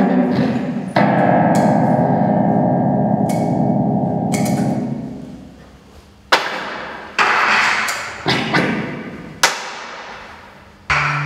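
Experimental noise music. A dense buzzing chord is held for about four seconds and fades, then five sharp struck notes follow, each ringing and dying away.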